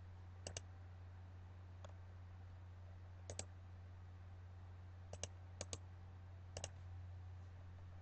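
Computer mouse clicking: about five scattered clicks, each a quick double tick, over a faint steady low hum.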